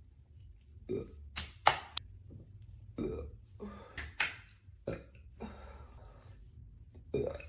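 A woman burping repeatedly: a string of short burps at irregular intervals of about a second, a few of them with a sharp, crackly onset.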